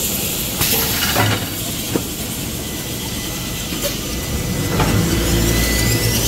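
XY-TQ-A-E toilet paper rewinding machine running, paper web winding over its rollers: a steady mechanical hum with a few sharp clicks at irregular intervals. The low rumble grows louder about five seconds in.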